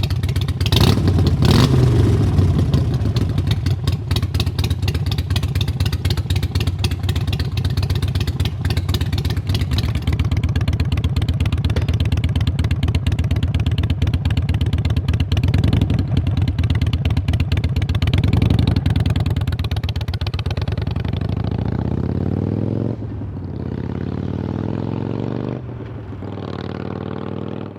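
Harley-Davidson Iron 883's air-cooled V-twin running through Vance & Hines Short Shots Staggered exhaust, idling with a few throttle blips. It is loud and pulsing, rising briefly near the start and twice in the second half, then dropping quieter in the last few seconds.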